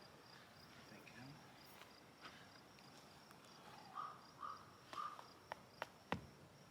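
Near silence: faint rural outdoor ambience with a steady high insect hum, three short calls about four seconds in, and three sharp clicks near the end.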